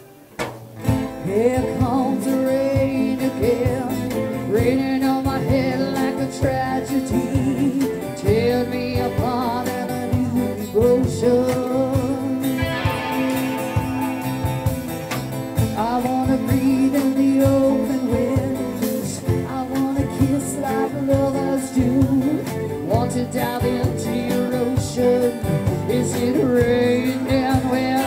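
Live rock band playing a song: a woman sings lead over strummed acoustic guitar, electric guitar, bass guitar and drums. The music drops away briefly at the very start, then carries on at full level.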